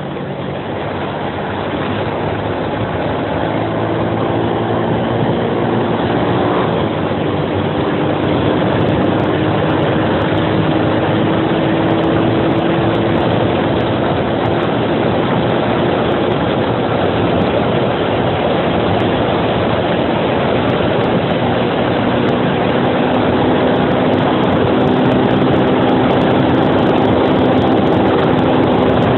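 Suzuki Axelo 125's single-cylinder four-stroke engine pulling uphill under load, mixed with heavy wind and road rush. The engine note climbs slowly, then settles to a lower pitch about three-quarters of the way through.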